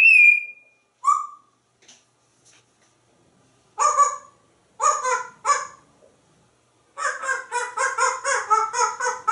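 African grey parrot giving a short whistle, then mimicking a dog barking: three separate barks, then a quick run of barks at about five a second near the end.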